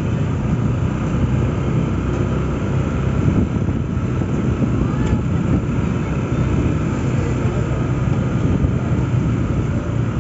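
Honda ADV 160 scooter being ridden at low speed: a steady low rumble of its single-cylinder engine mixed with road and wind noise.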